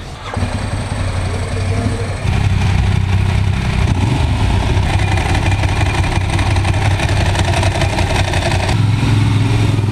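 Ducati 1098S V-twin engine idling steadily close by. It gets louder about two seconds in.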